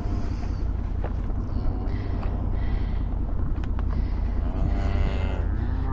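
A steady low rumble throughout, with a few faint clicks and a faint pitched sound near the end.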